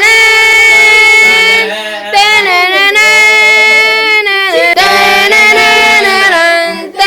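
A high voice singing loudly in three long phrases of held notes that slide from one pitch to the next.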